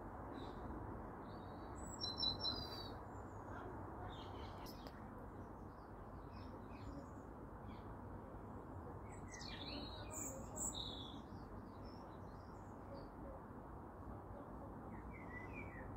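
Garden songbirds chirping and trilling in short scattered calls over a steady low background rumble, loudest about two seconds in and again around ten seconds.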